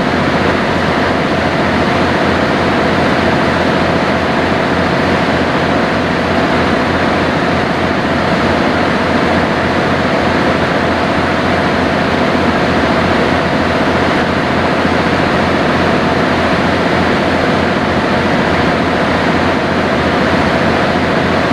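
Sightseeing boat under way at steady cruising speed: a constant engine drone with a faint steady hum, mixed with the rush of water and air.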